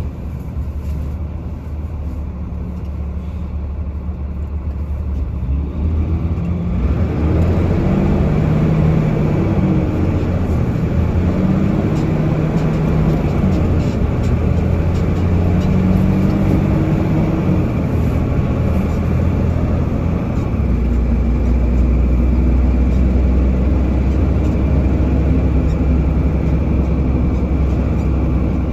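Car engine and road noise heard from inside the cabin while driving. From about seven seconds in it grows louder, with the engine note rising and falling as the car speeds up and slows.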